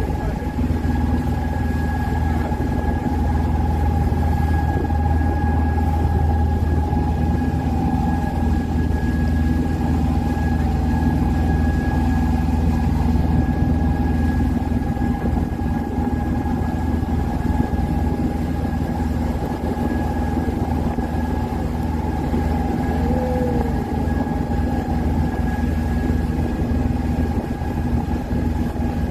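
Open tour boat's engine running steadily: a low hum with a steady higher whine over it.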